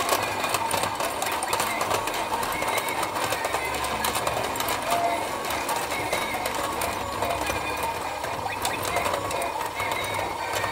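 Battery-powered fishing turntable toy running: a small electric motor and plastic gears whirring steadily, with a continuous rapid clicking.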